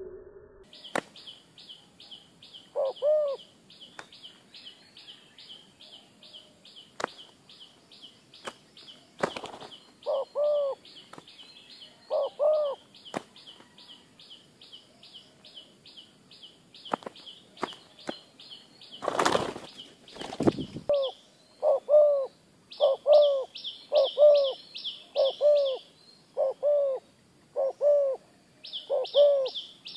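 Spotted doves fighting on the ground: wings flap and beat against each other in sharp claps, with one loud burst of flapping about two-thirds of the way in. Low dove coos come now and then at first, then repeat about once a second in the last third. A fast, high-pitched chirping trill runs in the background through the first half and returns near the end.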